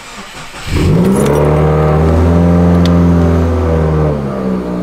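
2015 Subaru WRX's turbocharged FA20DIT flat-four, fitted with an aftermarket titanium exhaust, starting up: a brief crank, then the engine catches under a second in and flares to a high, loud idle. It settles to a lower idle about four seconds in.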